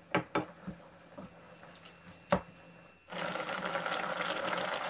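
A wooden spoon stirring chicken in coconut milk in a non-stick wok gives a few short knocks and scrapes against the pan, the loudest about two seconds in. From about three seconds in, the curry simmers with a steady bubbling hiss.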